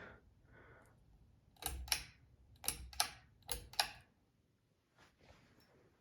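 Ceiling fan light pull-chain switch being pulled three times, each pull giving a sharp double click, the pulls about a second apart.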